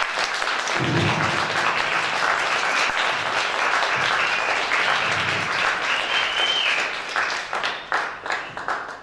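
Audience applauding after the song ends, the clapping thinning out near the end.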